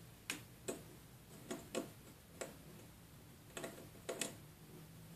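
Sharp, irregular clicks, about nine in five seconds and some in close pairs, from a small screwdriver and small parts on a phone's metal frame while the phone is put back together.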